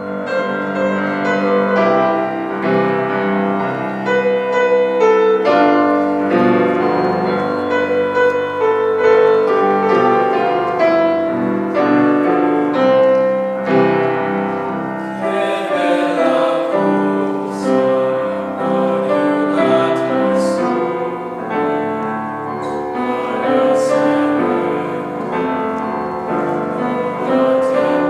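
Piano playing a song's accompaniment, with a choir starting to sing over it about halfway through.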